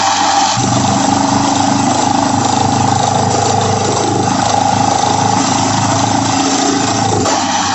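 Borewell drilling rig running: a steady engine drone under a loud, constant hiss. The engine's low hum steps up about half a second in and falls back near the end.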